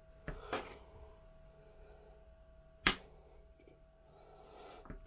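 Kitchen knife cutting thin slices of cheese and knocking on a wooden cutting board: two light taps early on, then one sharp knock of the blade on the board about three seconds in.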